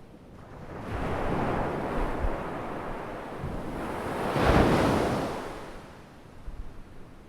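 Ocean waves breaking and washing ashore in two surges: one builds about a second in, and a louder one peaks about four and a half seconds in, then fades away.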